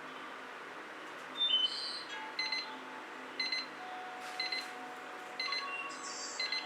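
Short high chirps repeating about once a second, with a couple of other brief chirps in between, over a faint steady hum.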